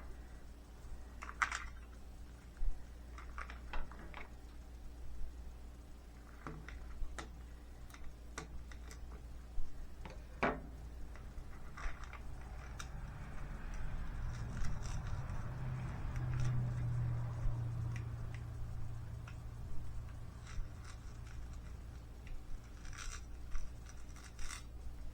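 Small scattered clicks and ticks of beads and packaging being handled, with a low hum for several seconds in the middle.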